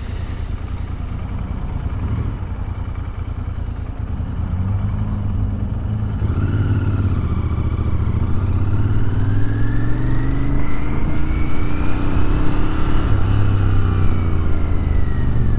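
Royal Enfield Continental GT 650's parallel-twin engine running while riding in traffic, getting louder from about four seconds in as the bike picks up speed, with its pitch rising and then easing back near the end.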